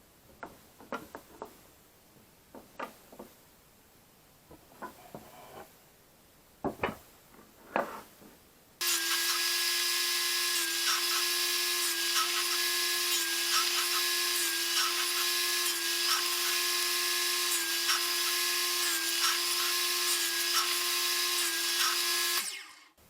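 A few light knocks and clicks, as of wood being handled. Then an electric power tool starts abruptly about nine seconds in and runs at a steady pitch with a constant whine and hiss for about fourteen seconds, cutting off shortly before the end.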